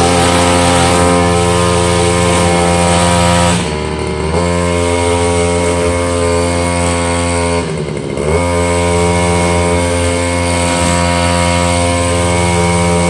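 Sumo backpack brush cutter's two-stroke engine running at high revs while trimming grass. The engine speed dips briefly and picks up again twice, about four and eight seconds in.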